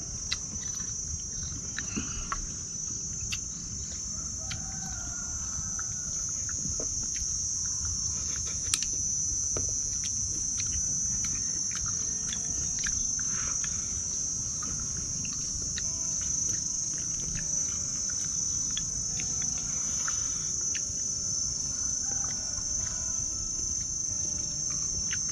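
A steady, high-pitched drone of insects, with scattered small clicks and taps of chopsticks against bowls as people eat.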